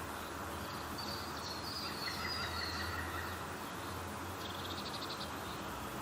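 Birds chirping over a steady background hiss, with a short rapid trill about four and a half seconds in.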